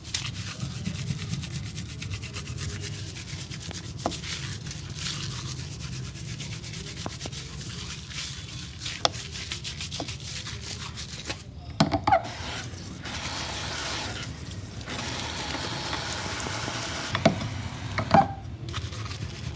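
Hands briskly rubbing and scrubbing a person's hair and scalp during a barber's head massage, a fast continuous scratchy friction, broken by a few short sharp smacks, the loudest about twelve and eighteen seconds in.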